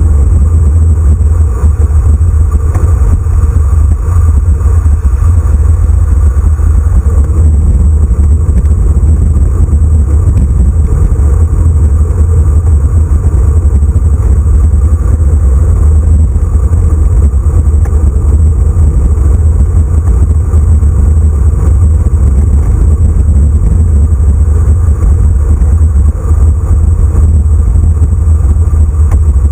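Loud, steady wind rumble buffeting the microphone of a handlebar-mounted camera on a road bike descending at speed, with tyre and road noise underneath.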